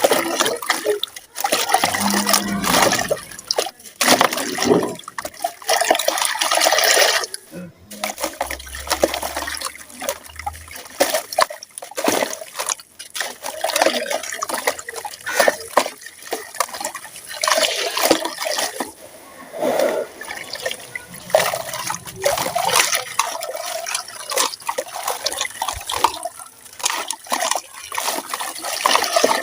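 Dry, gritty sand-cement crumbling and falling into water: irregular crackling and crunching with splashing and trickling.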